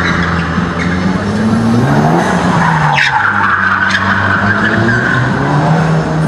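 A car driven hard through a slalom course. Its engine revs up and drops back repeatedly, and its tyres squeal through the turns, with a sharp squeal about three seconds in that settles into a steady screech.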